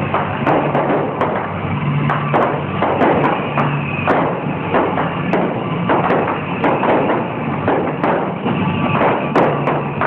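Fireworks going off in quick succession: a dense string of bangs and crackling pops. Music plays underneath.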